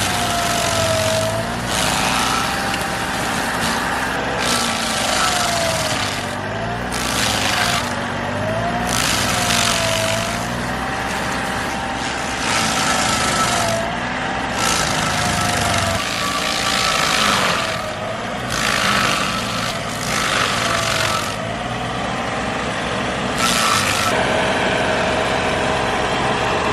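Bandit 2550T stump grinder's Kohler diesel engine working under load as the cutter wheel chews through a stump. Its pitch sags and recovers over and over, with bursts of grinding noise every second or two, and about 24 seconds in it settles to a steady pitch. The grinder is struggling because its cutting teeth are worn and badly need sharpening.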